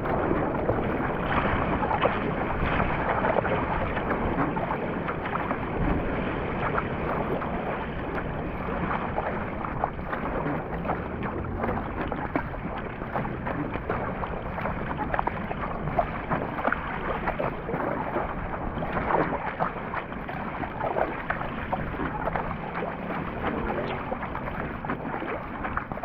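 Surfski paddling: the paddle blades catch and splash the water stroke after stroke over a steady rush of sea water, with wind buffeting the microphone.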